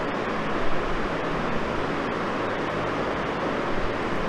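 Steady background hiss with a faint low hum underneath, even throughout with no distinct events: the room and microphone noise of the recording.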